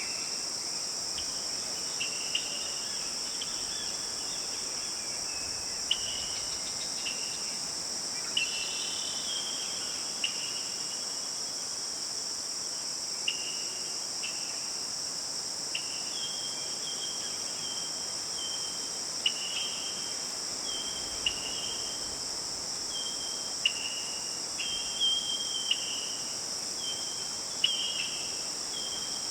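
Steady high-pitched chorus of crickets and other insects, with short chirping bird calls recurring every second or two, more often in the second half.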